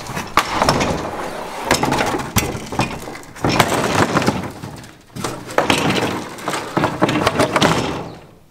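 Plastic Lifetime picnic tabletop knocking, scraping and clattering as it is carried over and set down on the boat. It is a string of irregular knocks and scrapes that dies down near the end.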